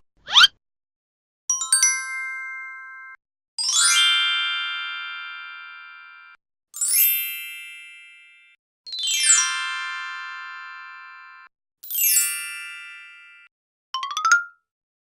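A run of separate electronic chime and ding sound effects with silence between them: a quick rising sweep, a bright stepped ding, then four sparkling glissandos that each settle into a ringing chord and fade over two to three seconds, and a short rising blip near the end.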